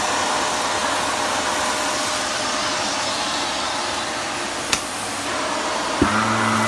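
Vacuum cleaner running steadily as it works over a rug, with a sharp click about halfway through. Near the end a knock sounds and a steady low hum comes in over the vacuum.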